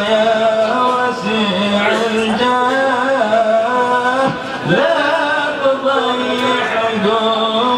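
Men's voices chanting a slow, melodic devotional song, with long held notes that bend in pitch.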